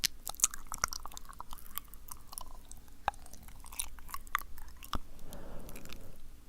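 Close-up wet mouth sounds: sticky tongue and lip clicks and smacks, many sharp irregular clicks in quick succession, with a soft breath about five seconds in.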